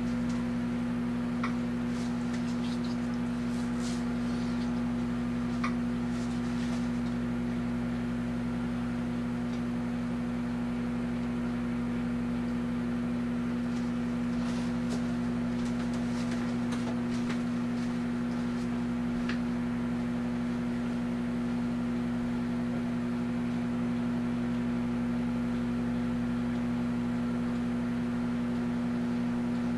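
Amazon Basics microwave oven running: a steady, even electrical hum, with a couple of faint ticks in the first few seconds.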